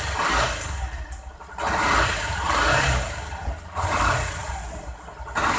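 Yamaha YTX 125's single-cylinder four-stroke engine revved in repeated throttle blips: the sound swells up and drops back about four times over a steady low engine note.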